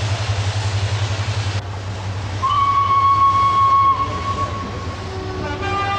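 Steam hissing from the Flying Scotsman, an LNER A3 Pacific steam locomotive. Then a single steam whistle blast, one steady high note held for about a second and a half. Near the end a second, lower and fuller-toned whistle starts.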